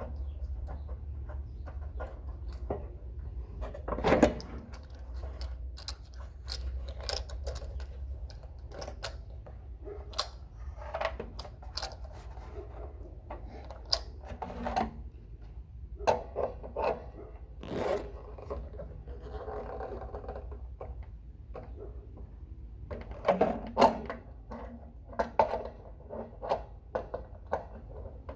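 Metallic clicks and scrapes of a new water heater temperature-pressure relief valve being screwed into the tank by hand and tool, over a low steady hum.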